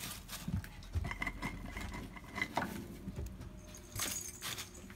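Dry Timothy hay rustling and crackling as a hand stuffs it into a small plastic pot, with irregular sharp clicks and a few louder spurts.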